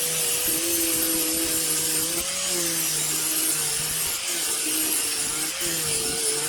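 Angle grinder running steadily, cutting and grinding rusted sheet metal: a steady motor whine over a harsh hiss, its pitch dipping briefly a few times as the disc bites.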